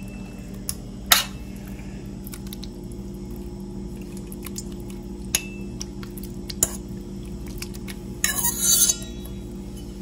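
A metal fork clinks and scrapes against stainless steel mixing bowls as raw chicken chunks are moved from one bowl to another. There are sharp clinks about a second in and again around five and six and a half seconds, and a longer scrape near the end. A steady low hum runs underneath.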